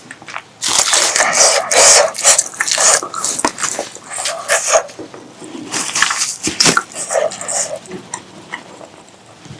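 Close-miked eating sounds: wet chewing, smacking and slurping of food, with a longer, louder run of noise about a second in and again around six seconds.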